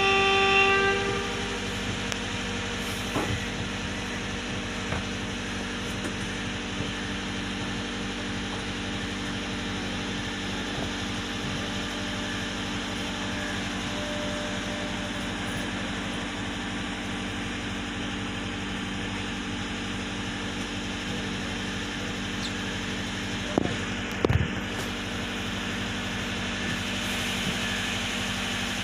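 A train horn sounds briefly at the start, then the train's diesel engine idles with a steady low hum during its station stop. Two short knocks come near the end.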